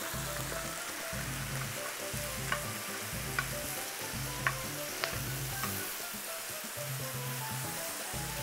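Food sizzling on a hot griddle as broth is worked into corn and sausage, with a few sharp clicks of a utensil against the pan around the middle. Soft background music runs underneath.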